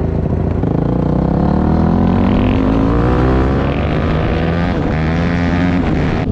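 Single-cylinder four-stroke off-road engine pulling under way, its pitch rising over the first couple of seconds and then holding, with a brief dip about five seconds in like a gear change.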